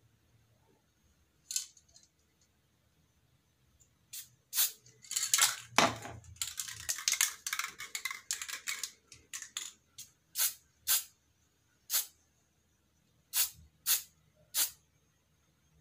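Aerosol spray can of clear coat being shaken, its mixing ball rattling in sharp metallic clicks. The rattling is fast and dense around the middle, then slows to single clicks about every half second to second.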